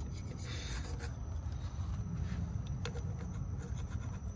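Thin metal scraper scraping and rubbing old gasket residue off the aluminium mating surface of a Honda Foreman 500 engine's top-end part, in faint, intermittent strokes over a low rumble.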